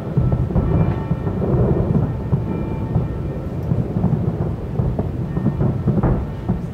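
Many New Year's Eve fireworks going off at once: a dense, continuous low rumble of booms with sharper bangs and crackles on top, one louder bang about six seconds in.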